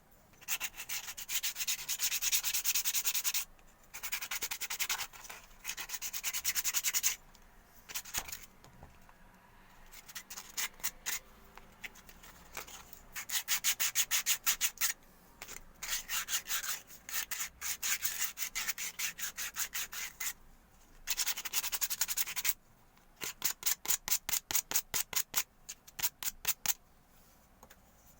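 Hand sanding: quick back-and-forth strokes of an abrasive rubbing over a surface, in bursts of a few seconds separated by short pauses, with separate strokes at about four a second near the end.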